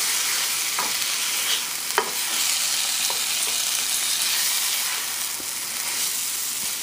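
Chicken pieces sizzling in a spiced tomato masala in a nonstick frying pan, being stirred and turned with tongs. A steady frying hiss runs under a few light knocks of the tongs against the pan, the sharpest about two seconds in.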